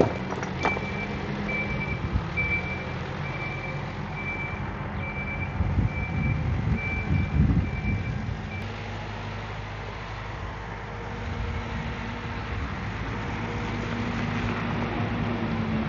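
Reversing alarm beeping about once a second over the steady running of a heavy diesel engine at an excavation site; the beeping stops about halfway through while the engine runs on, with a stretch of heavier rumbling just before it stops.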